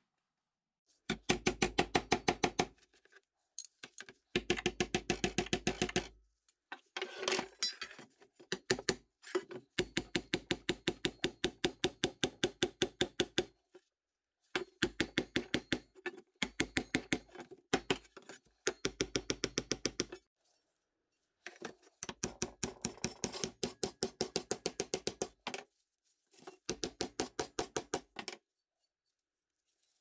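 Steel hammer striking a rusty pressed-steel Tonka toy part, metal on metal with a short ring to each blow. The blows are rapid and even, about seven a second, in runs of one to three seconds with brief pauses between.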